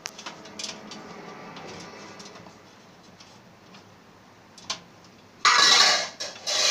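Clicks and knocks from handling a desktop PC cabinet and its cables. About five and a half seconds in there is a loud half-second scrape or rustle, and a shorter one near the end.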